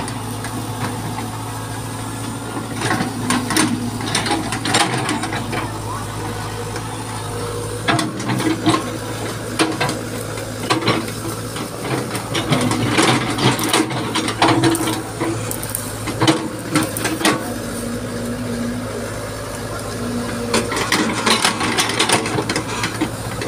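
Small tracked excavator's diesel engine running steadily, with repeated clanks, knocks and scraping as its bucket digs into soil and roots.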